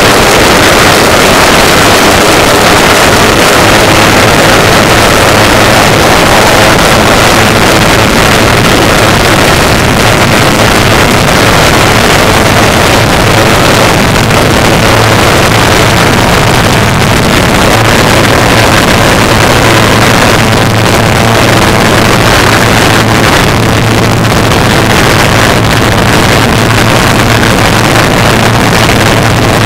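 Pulse jet engine running continuously, a very loud steady buzzing drone with a strong low pitch under the rushing noise of the exhaust.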